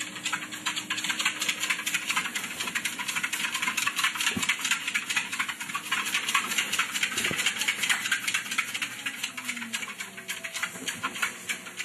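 A pug trotting on a running treadmill: a quick, continuous clicking of her claws on the moving belt, over the low hum of the treadmill motor.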